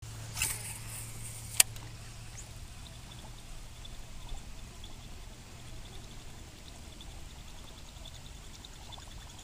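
Buzzbait retrieved across calm water, its blade churning and gurgling at the surface with a faint, evenly spaced high clicking, over a low steady hum. A single sharp click sounds about a second and a half in.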